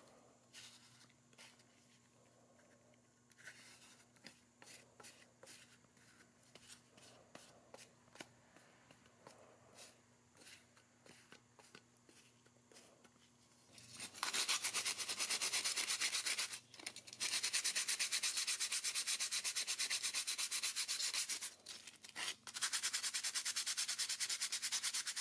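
Faint light taps and brush strokes on a thin steel toy plow blade. About halfway through comes loud, steady hand sanding of the blade with an abrasive, which stops briefly twice.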